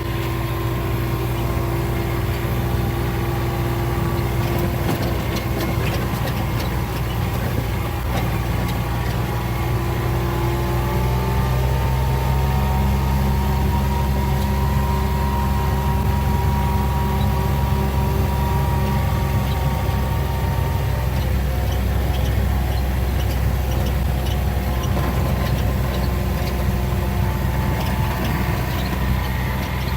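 A vehicle's engine running steadily at low speed, a constant low hum whose pitch shifts slightly now and then.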